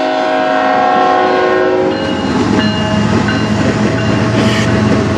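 Norfolk Southern diesel locomotive's horn sounding a long steady blast that cuts off about two seconds in. It is followed by the low drone of the locomotive's engine and the rumble of its wheels as it passes close by.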